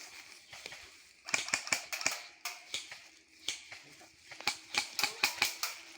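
Airsoft guns firing: rapid sharp cracks and clicks in two quick clusters, about a second in and again about four and a half seconds in, with a few single shots between.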